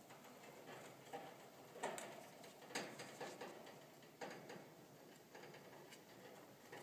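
Syrian hamster gnawing on the metal wire bars of her cage: faint scraping and clicking of teeth on metal, with a few louder clicks.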